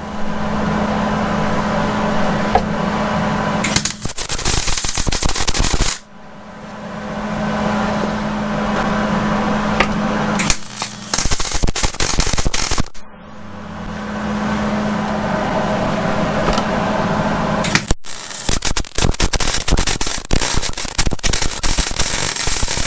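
Electric arc welding: the arc crackles and sputters in three bursts of a few seconds each, with a steady hum between them, as a cut-down clamp is tack-welded onto a quarter-inch steel plate.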